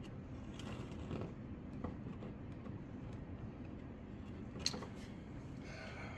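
Heat gun blowing steadily while softening the plastic to press in stainless steel mesh, with a few light clicks and taps from handling the work, one sharper click near the end.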